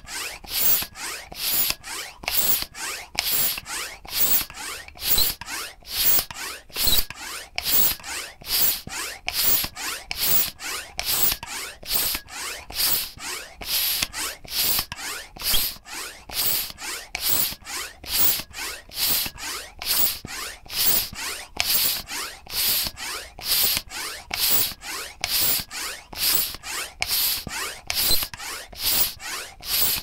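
Bicycle pump worked in quick, even strokes, each stroke a short hiss of air.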